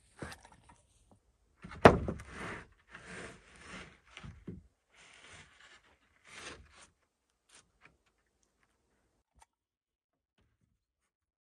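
A sharp knock, followed by a few seconds of scraping and rubbing, then a few faint ticks.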